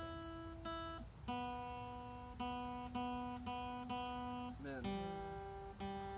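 Acoustic guitar playing a slow series of chords, each struck once and left to ring out.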